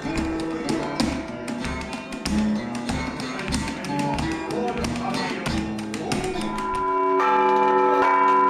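Russian Orthodox Easter bell ringing from a church belfry: quick strikes on small bells over regular low strokes. About seven seconds in it turns louder, with long-ringing tones.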